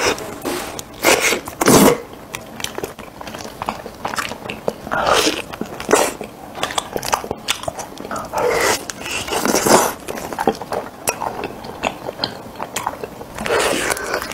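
Close-miked eating sounds: a person bites into a roasted chicken leg dressed with mustard sauce and chews it, with wet, smacking bites and tearing of skin and meat. There are about seven loud bites spread irregularly through, with softer chewing between.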